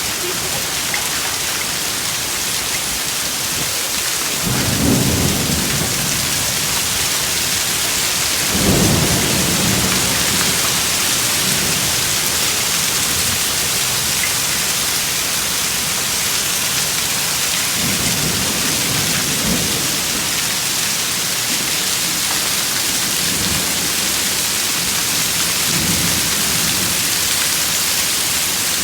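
Heavy rain and hail falling in a severe thunderstorm: a steady dense hiss, with several low rolls of thunder, the loudest about nine seconds in.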